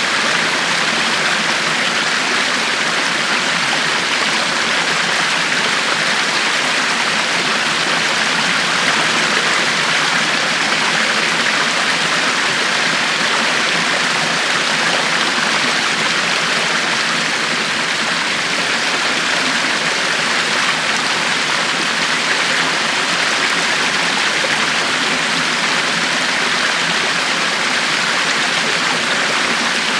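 River water flowing steadily over rocks, a continuous even rushing with no breaks or changes.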